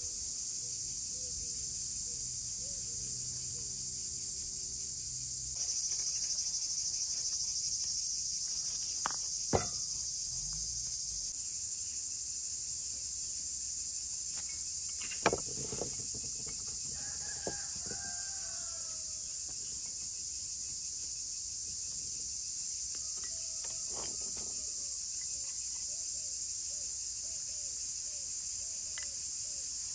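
Crickets chirping in a steady high-pitched chorus, with chickens calling a few times partway through. A couple of sharp knocks about ten and fifteen seconds in.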